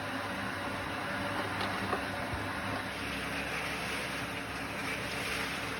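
Kadıoğlu Magnum 2 walnut hulling machine running: a steady low motor hum under an even rushing noise, with a couple of faint knocks about two seconds in.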